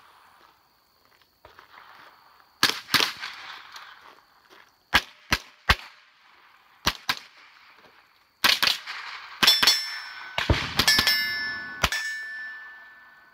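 A string of about fifteen rifle shots fired in pairs and short groups, with metallic ringing from struck steel targets carrying on after the last shots.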